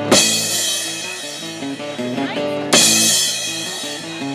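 Live rock band playing: drum kit with two crash-cymbal hits, one at the start and one just past halfway, over electric guitar playing a stepping riff.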